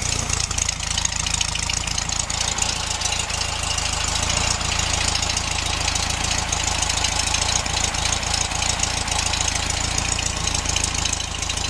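1967 VW Beetle's air-cooled flat-four engine idling steadily.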